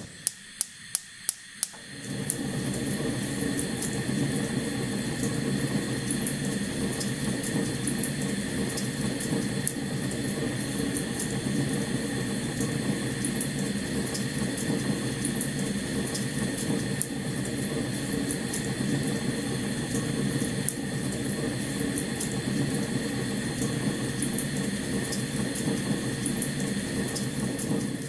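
Fire roaring steadily with scattered crackles. It starts about two seconds in, after a quick run of six or so sharp clicks.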